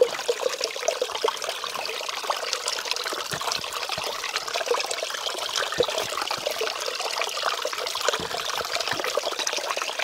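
A shallow creek trickling and dribbling over rocks, with a few louder splashes here and there as hands dip into the water.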